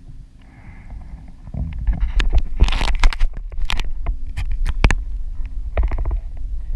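Kayak on the water: a low rumble with a string of sharp knocks and clicks, getting much louder about a second and a half in.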